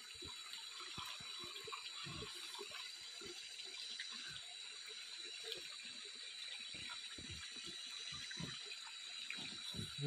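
Water dripping and splashing off a gill net as it is hauled by hand into a small boat, with many small irregular knocks and splashes. A faint steady high-pitched hum runs behind.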